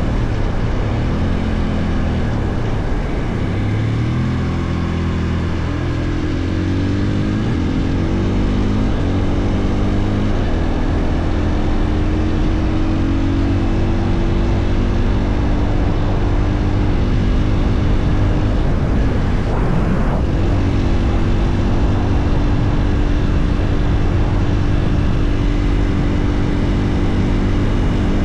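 Husqvarna FE 450's single-cylinder four-stroke engine running under way, the revs rising and falling through gear changes for the first several seconds, then holding fairly steady. There is a brief dip in revs about twenty seconds in.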